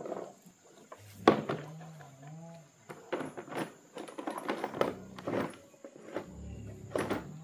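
Tools and a hard plastic tool case clattering and knocking as they are packed away, in a string of short irregular knocks.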